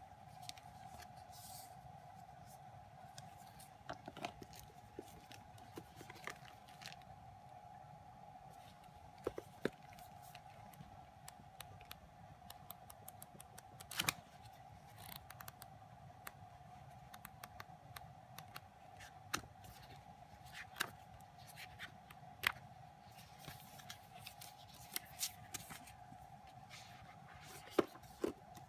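Paper and card being handled: an album photobook's pages flipped and stiff cards and plastic wrap shifted, in scattered light taps, clicks and rustles. A steady faint tone hums underneath.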